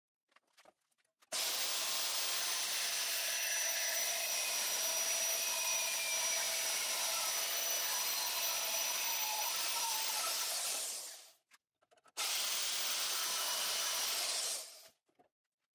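Wen portable band saw running and cutting lengthwise through steel tubing: a steady saw noise with a thin whine. It stops about 11 seconds in and starts again a second later for a few more seconds.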